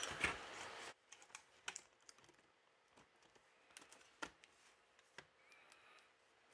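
Faint, scattered small plastic clicks and taps, about seven of them, as a replacement laptop LCD panel is handled and pressed into position in the plastic screen lid.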